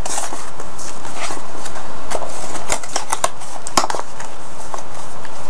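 Crinkling and crackling of a small cardboard box of thin sanitary pads and their plastic wrappers being opened and handled, with scattered sharp clicks.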